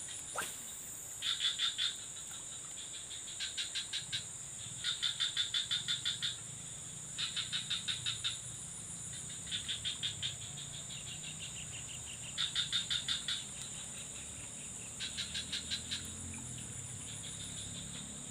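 Dusk chorus of insects and frogs: a steady high-pitched drone with short trains of rapid pulsed calls repeating about every two seconds. Just after the start there is a brief swish of a casting rod sending the lure out.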